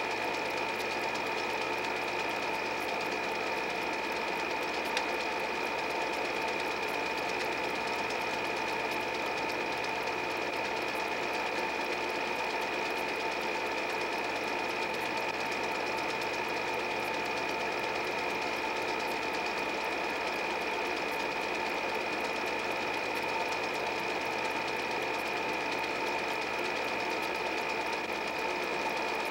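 8 mm film projector running: a steady mechanical whir with fast, even clatter from the film transport and a constant high whine.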